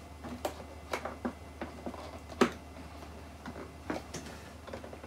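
Scattered light clicks and taps of hands handling an unpowered inkjet printer's plastic case and reaching for its power plug, with one sharper knock about two and a half seconds in. The printer stays silent because it is not plugged in far enough.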